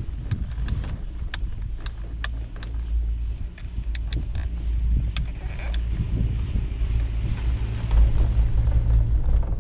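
Leitner detachable six-pack chairlift running: a steady low hum with a run of sharp, unevenly spaced clicks through the first half, then a louder rumble with a rushing noise over the last few seconds.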